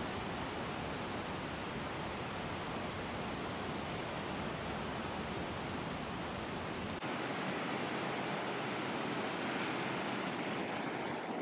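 Steady rush of water falling at the Aharbal waterfall, an even hiss of noise with no breaks. About seven seconds in, the deep rumble underneath thins out and the rush carries on.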